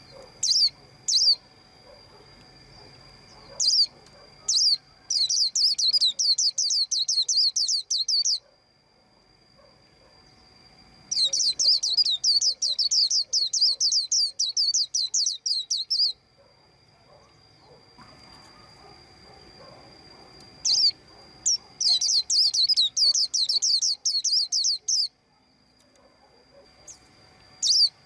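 A white-eye chirping. A few single thin, high chirps are followed by three runs of rapid, sweeping notes at about five a second, each lasting three to five seconds with pauses between.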